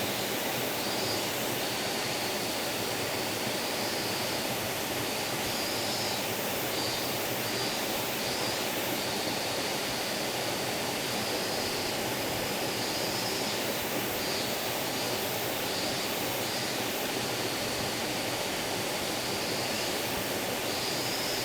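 A small forest stream babbling steadily, with a high, thin cicada buzz, from kaempfer cicadas, fading in and out over it.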